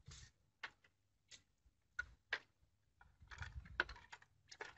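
Quiet, scattered light clicks and knocks, about seven in all and unevenly spaced, from a wooden carrying pole being handled and laid across the wire handles of two buckets.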